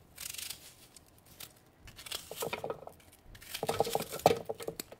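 Onion pieces being put into a plastic food processor bowl with a knife: irregular clicks, knocks and rustles against the bowl and blade, busiest near the end.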